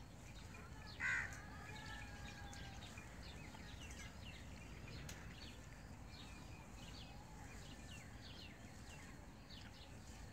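Outdoor birdsong: a crow caws once about a second in, and small birds chirp in short high notes throughout over a faint steady background noise.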